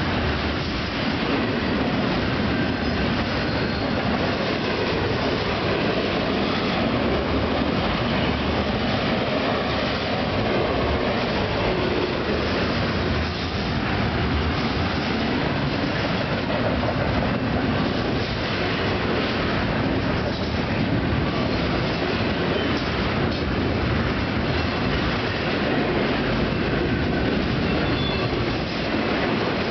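Double-stack container well cars of a freight train rolling past close by, with the steady rumble and clatter of steel wheels on the rails.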